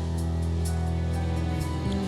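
Live band playing an instrumental passage of a slow pop song, with steady sustained low notes and no singing.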